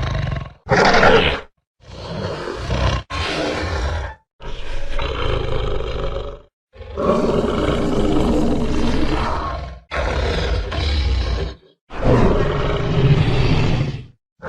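Spinosaurus roar sound effects: a string of about eight separate dinosaur roars, each one to three seconds long and cut off sharply into dead silence. The loudest is a short, higher roar about a second in; the longest runs for about three seconds near the middle.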